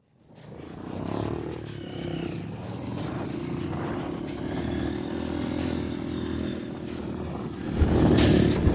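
Dirt bike engine running steadily. Near the end come loud rubbing and knocking as the phone is handled against clothing.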